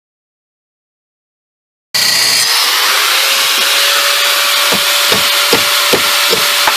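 Silence for about two seconds, then an angle grinder with a cutoff wheel starts up at full speed, running with a steady whine and a loud hiss as it cuts through a steel bolt on a CV axle. About halfway through, regular knocks come in at about two or three a second.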